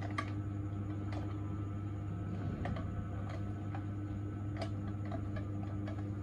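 A steady low hum with light, sharp clicks at irregular intervals.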